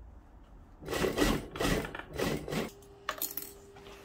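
Fabric rustling and rubbing as a dress is handled and folded by hand, in three brief bursts. A faint steady hum begins a little past the middle.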